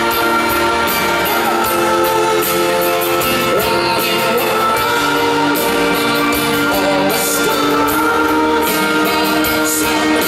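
Live pop-rock band playing in a large hall, with sustained held chords, a steady drum beat and singing.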